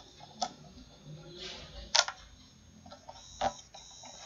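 Handling noise of a cut plastic bottle and electrical tape being wrapped around it by hand: a few sharp plastic clicks and crinkles, three of them about half a second, two and three and a half seconds in, the middle one loudest.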